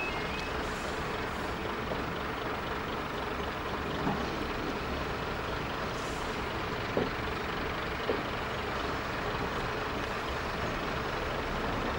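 Diesel multiple unit running, heard from an open window: a steady mix of engine, wheel and wind noise, with a few sharp knocks about four, seven and eight seconds in. A level crossing's warbling warning alarm stops just after the start.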